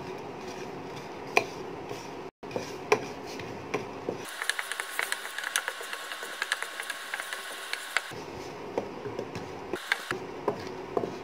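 Wooden spatula stirring chopped cashews, pistachios and almonds in a granite-coated nonstick pan as they are lightly roasted in a little ghee: irregular scraping and light clicking of wood and nuts against the pan, growing denser for a few seconds in the middle.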